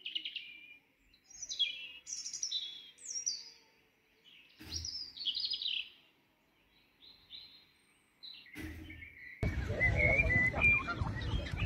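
A small songbird singing in short, high chirping phrases of a few quick notes each, with pauses between them. About nine seconds in, the sound cuts to a louder, busier background.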